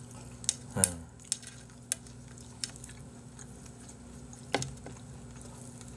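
Scattered light clicks of wooden skewers knocking against each other and the plate as a bundle of grilled chicken-heart skewers is gathered in gloved hands; about seven separate taps in the first five seconds.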